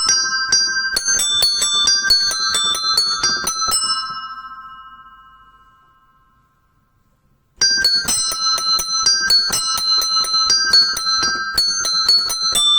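Small bells of a miniature home bell tower chimed rapidly in an Italian-style scampanio. The strikes stop about four seconds in and the bells ring away to silence, then the rapid chiming starts again suddenly about three seconds later.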